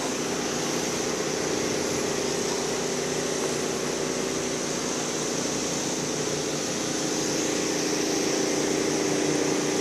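Steady motor drone with an even hiss over it, without a break.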